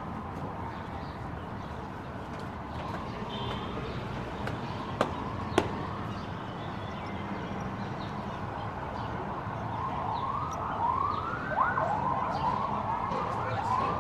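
Emergency vehicle siren, faint at first, then growing clear about ten seconds in as a quick run of rising yelps, over steady city street noise. Two sharp clicks come about five seconds in.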